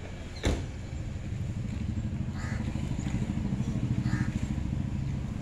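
A sharp knock about half a second in, then an engine running with a steady rumble that swells and eases off over a few seconds.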